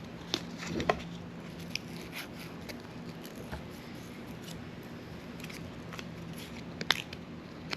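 Scattered light clicks and taps from small tools or parts being handled, two sharp ones about a second in and the loudest near the end, over a steady low hum.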